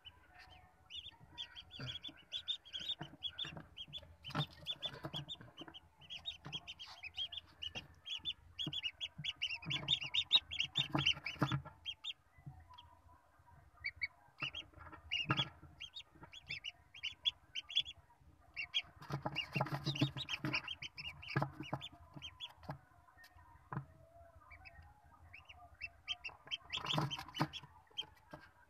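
Newly hatched ducklings peeping, quick runs of short high calls, with a few bumps among them.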